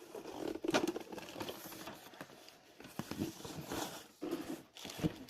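Packaging being opened and handled by hand: irregular rustling and crinkling, with scattered light taps and clicks.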